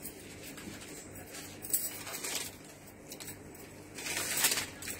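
Cloth rustling as a saree is handled, unfolded and spread out by hand, in a couple of brief bursts about two seconds in and again, louder, near the end.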